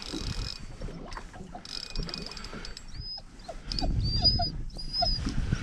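A dog whining and whimpering in short, high, repeated cries, excited at a fish being reeled up beside the boat. Under it a fishing reel is cranked in bursts, and a low rumble sets in about halfway through.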